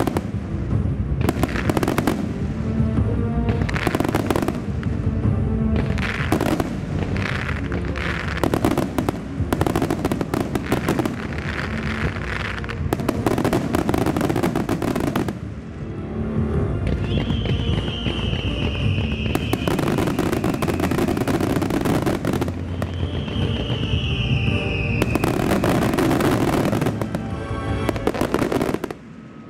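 Rapid fireworks barrage of a wide star mine finale, shells bursting and crackling in quick succession over loud music from loudspeakers close by. The sound drops away sharply near the end.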